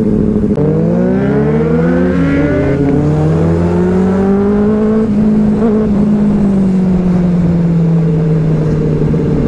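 Benelli 600i inline-four motorcycle accelerating under way: the engine note climbs steeply for about two seconds, drops at an upshift, then rises slowly and eases off as the throttle is held and rolled back.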